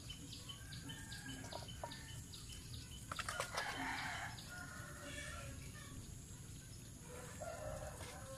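Chickens calling, with a rooster crowing. About three seconds in, a quick run of clicks as a goose's bill knocks against a steel feed bowl.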